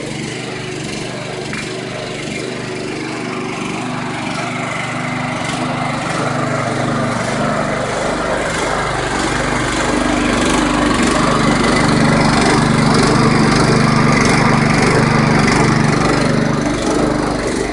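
Small 6.5-horsepower single-cylinder gasoline engine running steadily, belt-driving a 165-amp Delco alternator, with an inverter loaded by a truck's block heater. It gets louder through the middle and eases off near the end.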